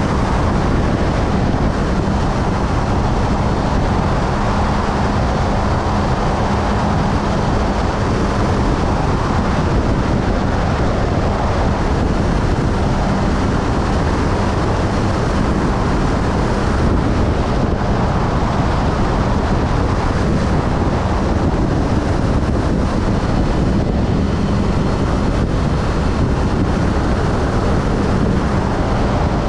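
Motorcycle cruising steadily at highway speed: wind rushing over the microphone, with a steady engine drone and tyre noise under it.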